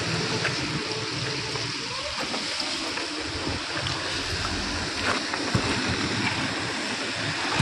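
Steady hiss of rain falling on a wet road, with a few faint clicks about five seconds in.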